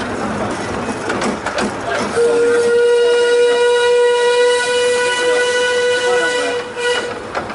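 Miniature steam locomotive's whistle sounding one long steady blast, starting about two seconds in and stopping shortly before the end, over the rattling running noise of the train.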